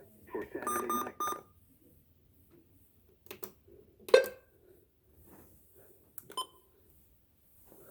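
Three quick electronic beeps, like button presses on a small device, then a few scattered clicks of handling. The loudest is a sharp click about four seconds in.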